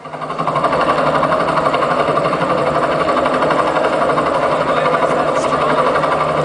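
Recorded engine sound effect: a steady, fast mechanical rattle that comes in suddenly and runs on at an even level.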